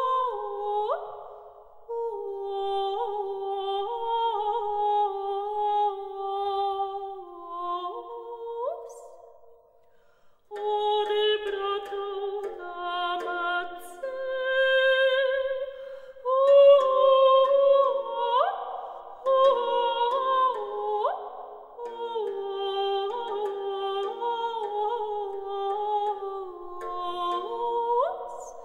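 Background music: a slow, wordless hummed melody in several parallel lines, with quick upward slides between notes. It breaks off briefly about ten seconds in, then resumes with more parts.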